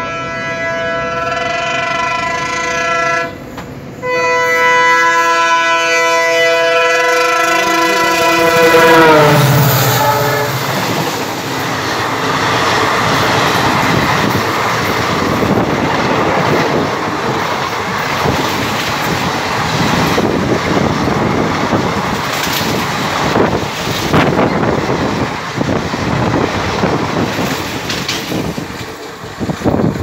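WDP4D diesel locomotive's multi-tone horn sounding in two long blasts, the second falling in pitch as the locomotive passes close by. Then the express coaches rush past on the next track, a loud steady roar with wheel clatter that lasts about twenty seconds and drops away near the end.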